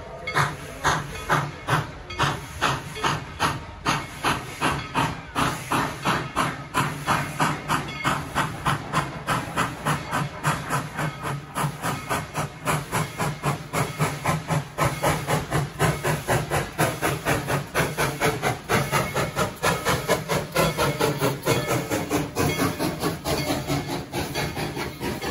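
Steam locomotive exhaust chuffing in a steady rhythm that quickens from under two beats a second to about four as the engine picks up speed pulling its train.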